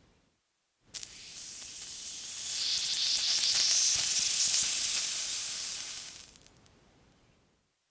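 Water sizzling on a hot surface: a sudden hiss starts about a second in, swells to a loud, high sizzle, then dies away over a few seconds.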